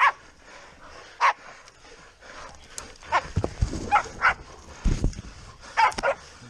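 Pig-hunting dogs barking in short, sharp barks, about seven times, as they hold a boar. Heavy thuds of the struggle come about halfway through.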